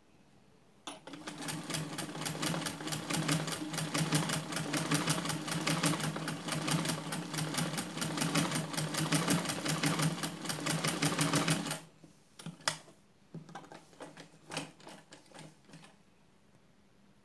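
Black domestic sewing machine stitching a seam at a fast, even clatter, starting about a second in and stopping a little after two-thirds of the way through. A few scattered clicks follow.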